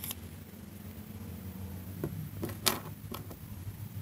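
A few light clicks and taps of metal hand-drill parts being handled and fitted together as the cast drive gear goes onto its axle stud. The loudest click comes about two and a half seconds in.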